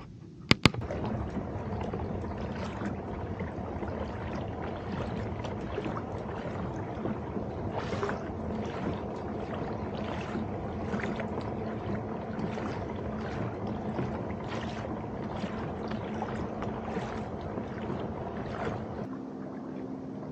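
Kayak being paddled: the paddle dips and splashes roughly once a second over a steady wash of water against the hull, after two sharp knocks about half a second in.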